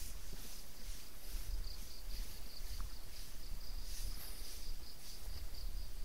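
Insects chirping in a steady, rapidly pulsing high trill, over a low uneven rumble.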